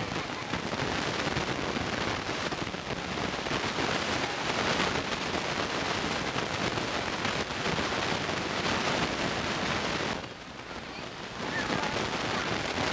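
Wind rushing over the camcorder microphone as a steady noise, dipping briefly about ten seconds in.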